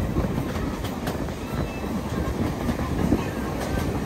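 Heritage railway carriage running along the track: a steady low rumble with scattered clicks and clatter from the wheels on the rails.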